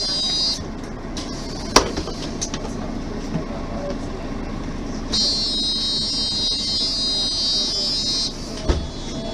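Mercedes-Benz Facelift city bus running steadily. A high-pitched tone sounds briefly at the start and again for about three seconds past the middle, with a sharp click about two seconds in and another near the end.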